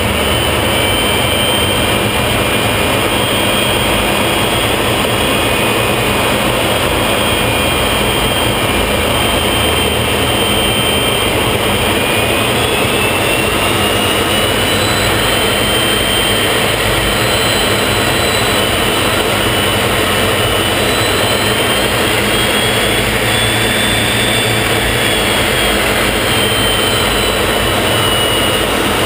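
Folland Gnat's Bristol Siddeley Orpheus turbojet heard from inside the cockpit in flight: a loud, steady rush with a high whine that drifts slowly up and down in pitch.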